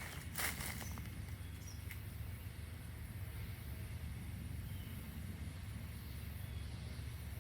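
A single footstep about half a second in, then a steady low outdoor rumble.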